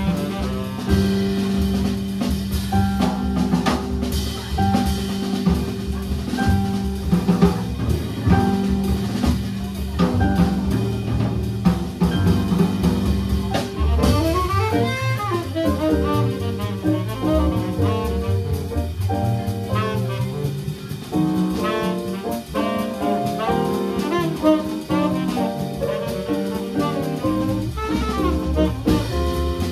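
A small jazz band playing live: a saxophone line over keyboard piano and drum kit, with a fast run of notes sweeping up and down about halfway through.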